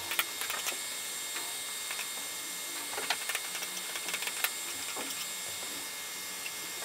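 Stepper motors of a DIY laser fabric-cutting gantry whining in short start-stop moves as the laser head cuts small holes, over a steady hiss. Scattered sharp clicks, loudest a few seconds in.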